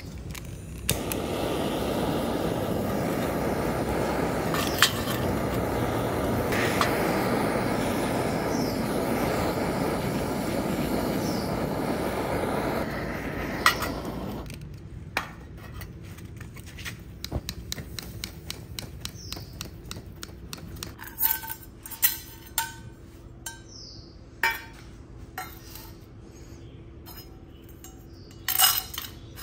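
Gas torch flame burning steadily on a stainless steel pan of rusty steel screws, heating them to blacken them, cutting out about fourteen seconds in. Then scattered metallic clinks of the small screws against the pan, with a few louder ones near the end as they are tipped out.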